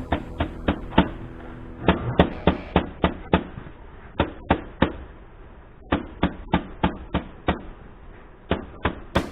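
Excavator engine air filter element being knocked repeatedly against a hard surface to shake the packed dust out: a run of sharp knocks, a few a second, in groups separated by short pauses.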